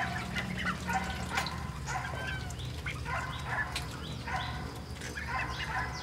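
Muscovy ducks and ducklings calling, a short call about once a second.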